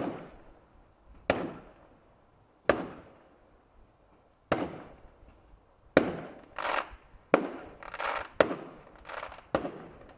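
Fireworks display heard from a distance: single sharp bangs of aerial shells bursting, each followed by a fading echo, a second or more apart at first. From about six seconds in they come faster, roughly two a second, with some crackling bursts.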